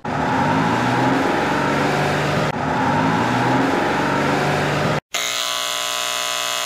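Electric hair clipper buzzing sound effect, a dense buzz with a low stepped pattern that repeats once, cutting off about five seconds in. It is followed by a steady, sustained horn-like tone.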